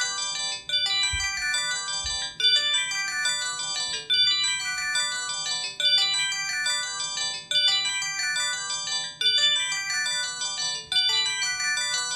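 Samsung SGH-A727 flip phone playing one of its built-in polyphonic ringtones through its own speaker: a short melody of quick notes, the same phrase repeating about every 1.7 seconds.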